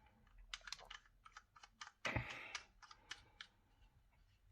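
Faint, quick series of small plastic clicks from a vape mod's adjustment buttons being pressed over and over to lower the wattage, with a brief louder rustle of handling about two seconds in.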